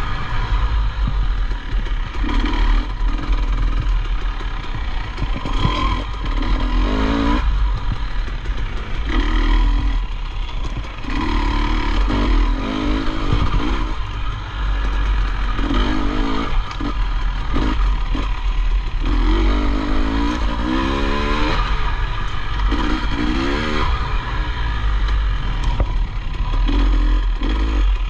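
Off-road motorcycle engine revving up and backing off over and over, a burst every couple of seconds, over a constant heavy low rumble with scattered knocks and rattles.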